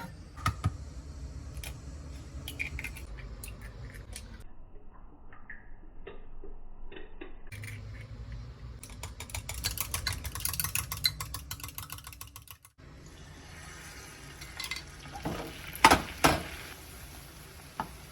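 Kitchen cooking sounds in several short cut-together clips: utensils clinking against dishes and pans, a stretch of quick clicking partway through, and a few loud sharp knocks near the end.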